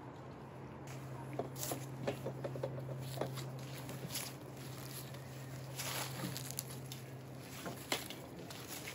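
Cloth sail rustling and flapping as it is handled and tied to metal poles, with scattered light taps and clicks. A steady low hum runs underneath.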